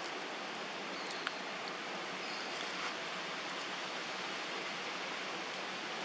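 Steady, even outdoor hiss, with a single sharp faint click a little over a second in.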